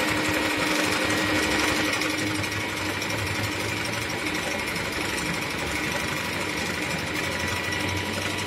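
Singer Simple portable electric sewing machine running steadily under the foot pedal, stitching a dense crescent-moon decorative stitch at a 0.5 stitch length.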